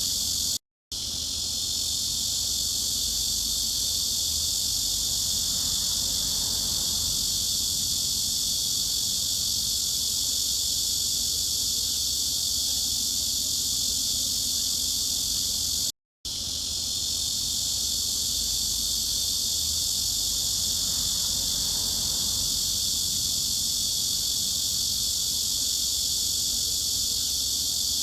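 Cicadas buzzing in a dense, steady, high-pitched chorus. It drops out to silence for a split second twice, about a second in and just past halfway.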